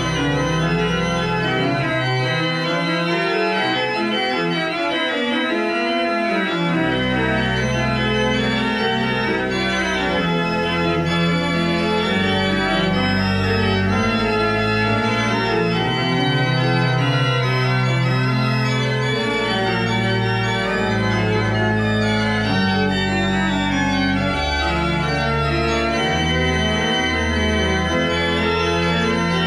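Church pipe organ playing full, sustained chords over deep pedal bass notes. The chords change every second or so, and the lowest bass drops out for a few seconds near the start before coming back.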